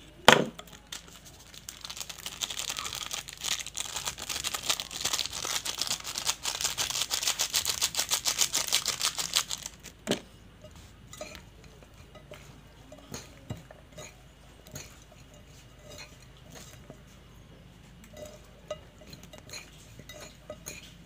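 A plastic seasoning sachet crinkling in a fast, dense crackle for about eight seconds as its powder is shaken out, after a sharp click just after the start. After that, a few faint taps and clinks as fingers work the seasoning into fish on a china plate.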